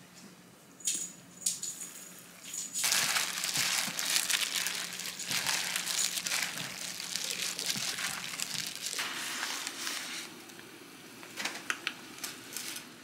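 A hand in a disposable plastic glove mixing lettuce, sea snails and seasoning in a glass bowl: dense, loud rustling, crinkling and squelching for several seconds, starting about three seconds in. Before it come a couple of brief plastic crinkles, and after it the sound drops to a quieter stretch with a few light clicks near the end.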